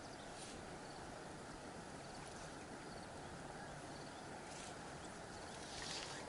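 Steady, faint rush of flowing river water, with a few faint high chirps and a brief rustle near the end.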